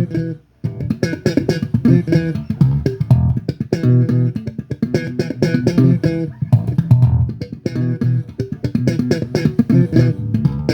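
Bass guitar playing a worship tune in a run of quick plucked notes, with a brief break just after the start.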